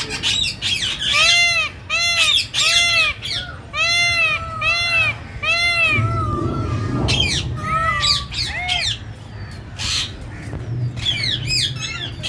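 Peacock giving a run of about eight loud, arching calls in quick succession, roughly two a second, followed by scattered shorter calls.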